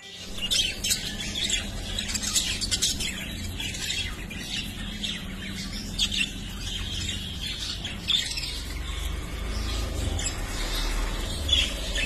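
Budgerigars chattering: many quick high chirps and squawks throughout, with a few louder calls standing out, over a low steady rumble.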